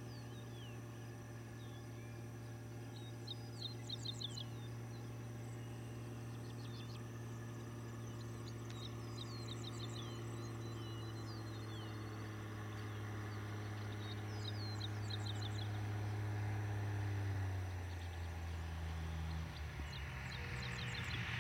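Cessna 182 light airplane's piston engine and propeller droning steadily on approach, growing louder as it nears. About three-quarters of the way through the engine note drops as power comes back for the landing, and a rising hiss builds near the end as the plane comes close. Birds chirp throughout.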